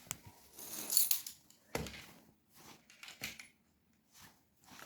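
Scattered light clicks, taps and rattles from small tools and metal parts being handled on a workbench, with a short rustling patch about a second in.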